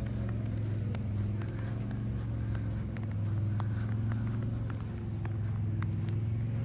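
A steady low mechanical hum, running unbroken, with scattered light ticks on top.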